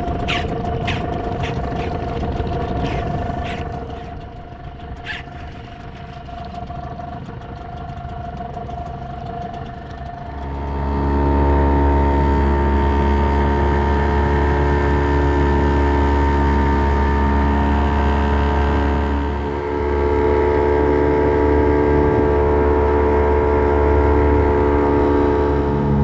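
Small wooden fishing boat's engine running under way, coming in loud about ten seconds in and holding a steady note, with a brief dip a little later. Before it, a quieter steady hum with a few sharp clicks.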